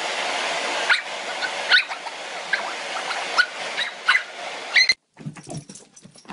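A dog whimpering in short, high squeaks, about six of them over a steady hiss. The sound cuts off suddenly about five seconds in, and light, irregular tapping follows.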